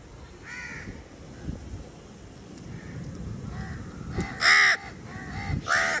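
Crows cawing, a series of short harsh calls that come faster and louder toward the end, the loudest about four and a half seconds in.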